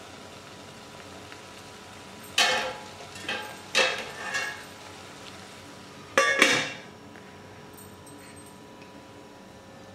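Stainless steel lid being set onto a steel cooking pan: a handful of short metallic clanks and clatters, the loudest about six seconds in.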